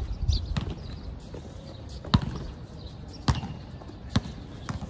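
Basketball bouncing on a hard court: about five sharp bounces at uneven intervals.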